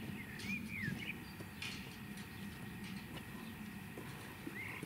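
Footsteps through churned, rutted mud, with a bird chirping a few short rising-and-falling notes near the start and again near the end.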